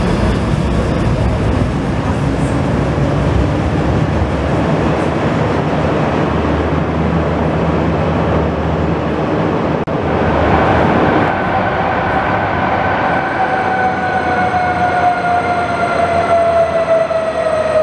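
Bombardier low-floor tram running in an underground tunnel, with a steady rumble of wheels on rails. About ten seconds in comes a sudden break, and then a tram's electric traction whine sounds as it approaches the platform, falling slowly in pitch as the tram brakes.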